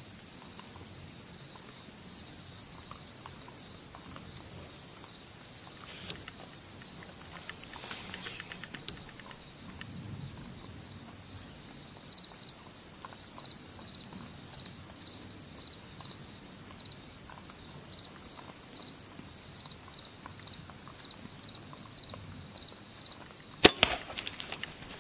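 Insects trilling steadily in the woods, then about a second before the end a bow is shot at a black bear: one loud sharp crack of the release and hit, followed by a few quick knocks and rustles in dry leaves as the bear reacts.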